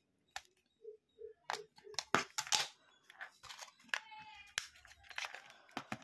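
Plastic back cover of a keypad mobile phone being pried off and its battery lifted out: a run of clicks, snaps and scrapes, loudest about two seconds in.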